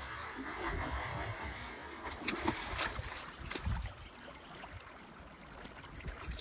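Shallow pond water splashing and lapping, with a few sharp clicks about two and a half and three and a half seconds in.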